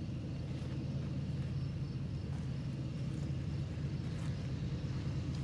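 Approaching diesel train: a low, steady rumble that grows slightly louder.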